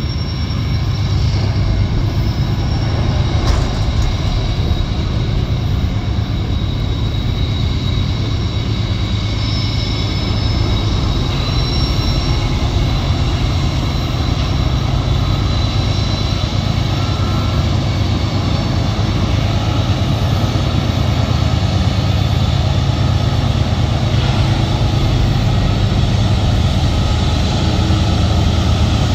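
Diesel locomotives of a freight train running under power, a steady low engine drone. Eastbound at Keene, the train is climbing the grade toward Tehachapi, so the engines are working hard.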